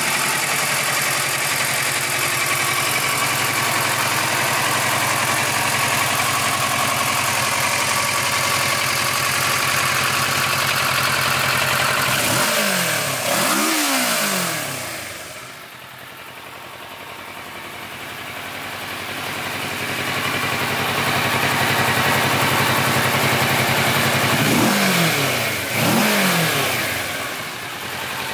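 Kawasaki Versys 650 parallel-twin motorcycle engine idling steadily. The throttle is blipped twice about halfway through and twice more near the end, each rev rising and falling quickly back to idle.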